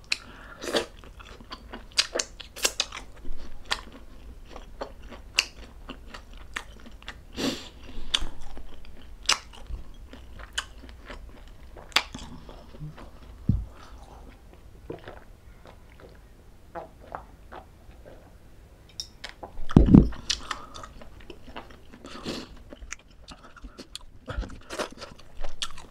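Close-miked eating of spicy stuffed squid adobo: irregular wet clicks and smacks of biting and chewing, with one louder thump about twenty seconds in.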